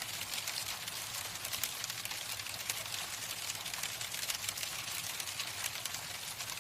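Hailstones falling steadily, a dense, even patter of countless small hard ticks striking a surface.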